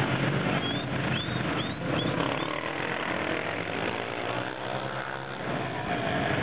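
Supermoto motorcycle engines running and revving, the pitch rising and falling.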